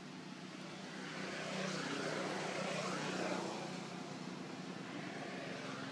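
Engine of a passing motor vehicle: a steady engine drone that swells to its loudest about two to three seconds in and then fades back down.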